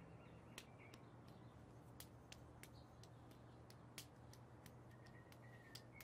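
Faint backyard birdsong: a scatter of short, sharp chip notes, about two a second, and a thin wavering whistle near the end, over a low steady hum.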